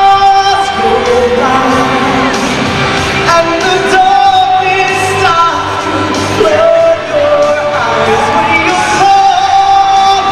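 A man singing a song live into a handheld microphone over backing music, amplified through an arena's sound system.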